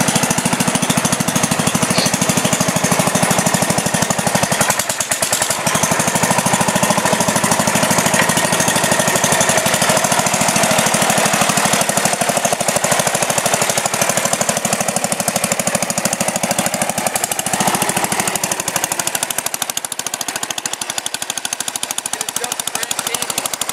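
Sears Suburban garden tractor engine running with a fast, even chatter while the tractor works its front blade, pushing dirt back into a trench. The sound eases a little near the end.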